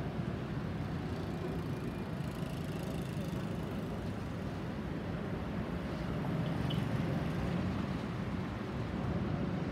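Airbus A320-216's CFM56 turbofan engines heard from the ground as the airliner climbs out overhead: a steady low rumble that swells slightly about seven seconds in.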